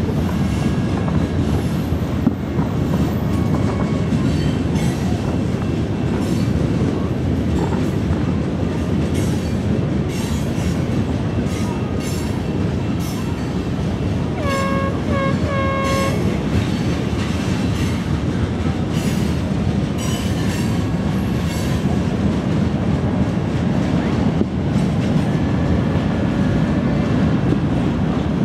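Distant fireworks display: faint pops scattered over a steady low rumble, with three short horn honks about halfway through.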